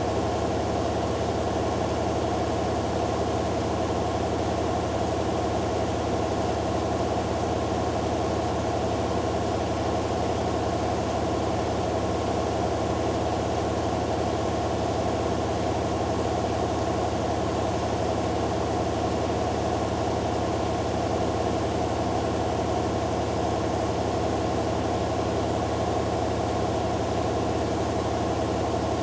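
Hoover Dynamic Next DXA610IW3 front-loading washing machine in its spin cycle, the drum spinning at a constant speed with a steady motor hum and whine.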